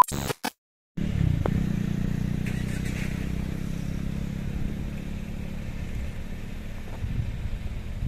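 A short burst of TV-static glitch noise and a moment of silence, then the steady low rumble of a Kia Seltos driving, heard from inside the car.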